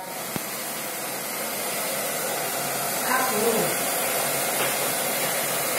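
Hair dryer running steadily, blowing air onto glowing charcoal briquettes to fan them hotter.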